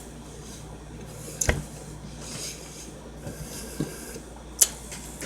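Quiet sounds of someone eating sushi, with two sharp clicks, one about one and a half seconds in and one near the end.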